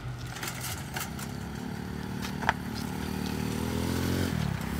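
A motor vehicle's engine passing by: it grows louder and slowly rises in pitch, then drops sharply in pitch near the end as it goes past. There is a single sharp click about halfway through.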